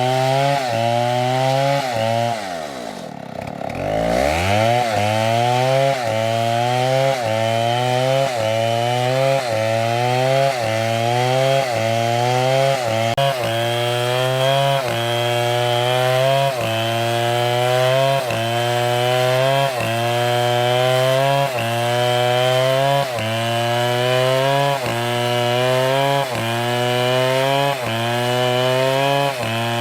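Large STIHL chainsaw running hard in a cut through wood, its engine pitch sagging and climbing again about once a second as it loads and frees. About three seconds in, the engine bogs down deeply, then revs back up.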